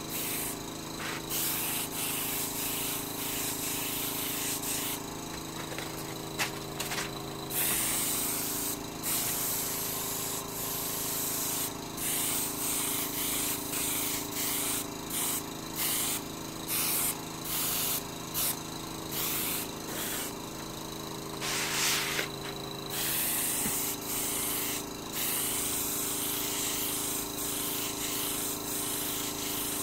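Airbrush spraying paint in many short bursts of hiss, starting and stopping every second or so as the trigger is worked, over a steady low hum.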